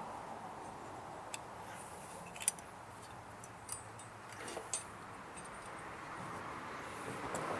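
A few light, sharp clicks and taps, the kind made by handling tools or small parts, over a steady low background hiss.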